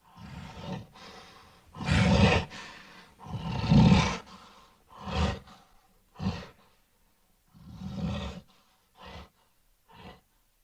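Monster growls made by a person's voice for the Creeper: a string of raspy roars and snarls, each a second or less long. The loudest come about two and four seconds in, and later ones grow shorter and fainter.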